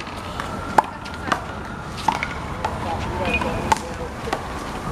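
Handball rally: a series of sharp slaps at irregular intervals as the small rubber ball is struck by hand and hits the wall and ground, the loudest about a second in.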